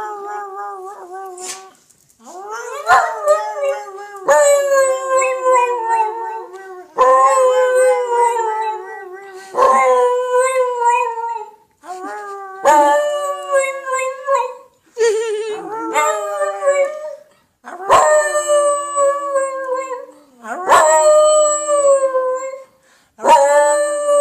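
A dog howling over and over: about ten long, wavering howls, each a couple of seconds long, with short breaks for breath between them.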